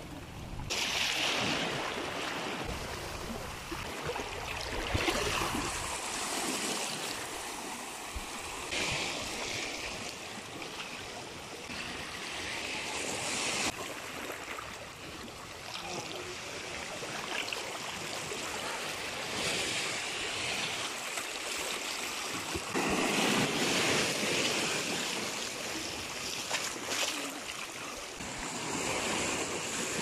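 Small ocean waves washing in and draining back over a rocky shore, surging every few seconds, with the biggest surge about three-quarters of the way through.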